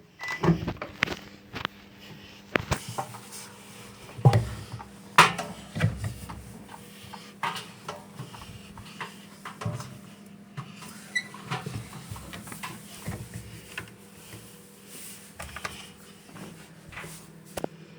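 Scattered knocks and clunks, likely a cat moving about inside a washing machine drum, over a steady low hum. The strongest knocks come about four and five seconds in.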